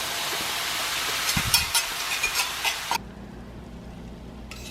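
Food sizzling and crackling in a hot pan, a steady hiss that cuts off abruptly about three seconds in. A few light clicks of utensils follow near the end.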